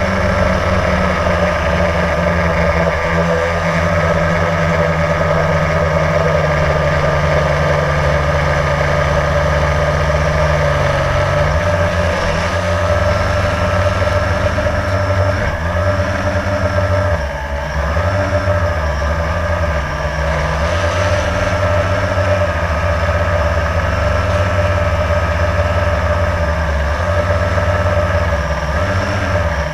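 Blade quadcopter's electric motors and propellers humming steadily, heard close up through the GoPro riding on it. In the middle part the pitch swings down and up several times as the motor speeds change.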